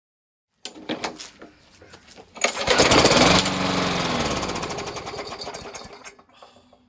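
Briggs & Stratton lawn mower engine on a Yard Machines mower. After a few knocks, it runs loudly for about a second, then winds down in pitch and dies away over about three seconds.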